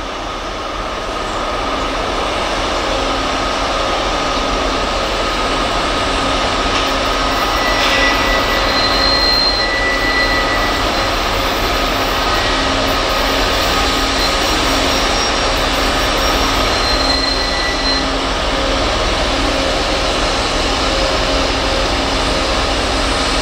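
Diesel freight locomotive engines running hard as the train climbs a snowy grade, a steady drone that grows louder over the first several seconds as it approaches, then holds. A thin high whine rises over it twice.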